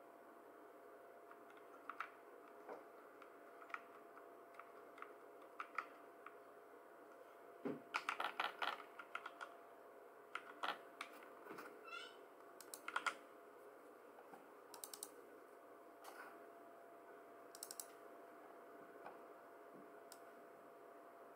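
Typing on a computer keyboard: scattered key clicks, with a quick run of keystrokes about eight seconds in and another burst a little later, over a faint steady hum.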